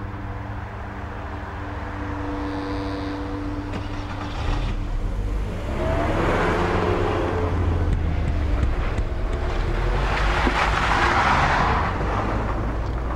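Passenger cars, a Mercedes-Benz saloon and a Volkswagen Golf, driving past at low speed. Engine and tyre noise swell as one car passes about six seconds in, and again, louder, as another passes around ten to twelve seconds in.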